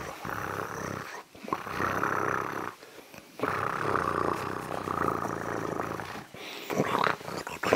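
A person's breathy, snore-like vocal noises, in drawn-out stretches broken by short pauses.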